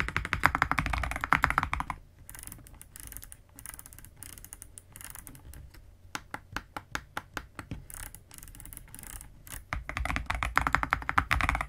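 Epomaker RT100 mechanical keyboard being typed on: a fast, dense clatter of keystrokes for the first two seconds, slower and quieter separate key presses through the middle, then fast typing again from about ten seconds in.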